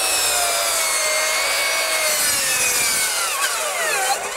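Bosch PROFACTOR 18V cordless 12-inch glide miter saw's brushless motor running at speed level 3 as its blade cuts through a wide board: a high motor whine over the sound of the blade in the wood. About three and a half seconds in, the whine drops in pitch as the motor bogs down under the push, then climbs back up near the end.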